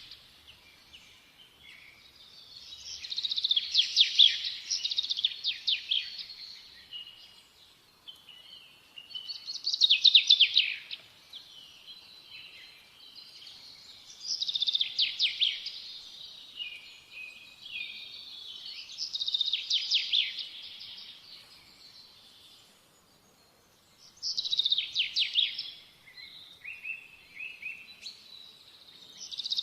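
A songbird singing, repeating a phrase of rapid trilled notes roughly every five seconds with softer chirps in between.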